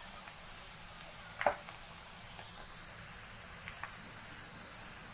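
Cornflour-coated potato strips deep-frying in oil on a low flame: a steady sizzling hiss, with one sharp pop of spitting oil about a second and a half in and a few faint crackles later.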